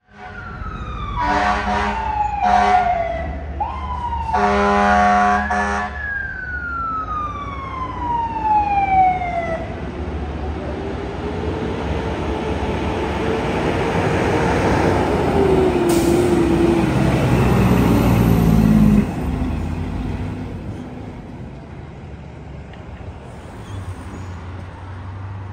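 Fire ladder truck running with warning devices: three air-horn blasts in the first six seconds, and a mechanical siren that winds down, winds up again and coasts down slowly. After that, a long loud rumble of the truck's engine and traffic that drops off sharply near the end.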